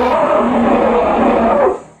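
Elephant call, a loud, rough, wavering cry that fades out near the end.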